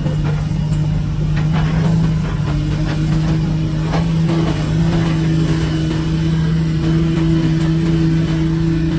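Heavy construction machine's diesel engine running steadily at a constant speed, with scattered knocks and clatter over it in the first few seconds.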